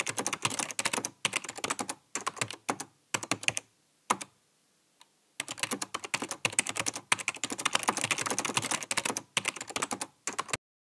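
Rapid typing on a computer keyboard in runs of keystrokes, broken about halfway through by a pause of a second or so with only a couple of single key presses; the typing stops just before the end.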